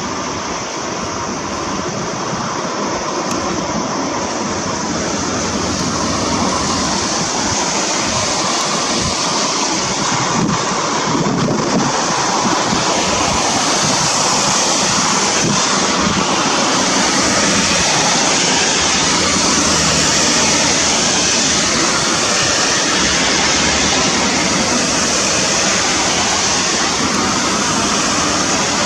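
Steady rushing noise of river water and wind, growing slightly louder over the first several seconds.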